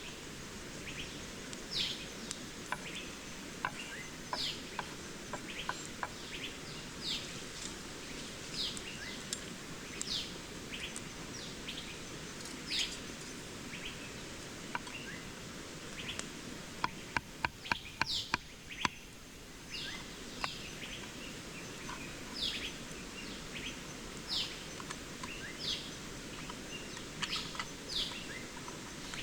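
Steady rush of a waterfall with a bird calling over and over, short high chirps about once a second. A quick run of sharp clicks comes about two thirds of the way through.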